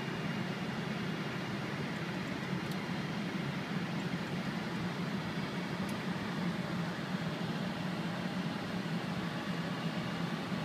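Steady rush of flight-deck noise in a Boeing 747-400 on final approach in landing configuration (gear down, flaps 30): airflow and air-conditioning noise, heaviest in the low range, with no change.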